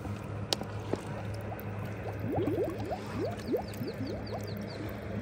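Soft water-filter pouch being filled underwater in a lake, air gurgling out of it in a quick run of bubbles from about two seconds in, after two sharp clicks near the start. A steady low hum runs underneath.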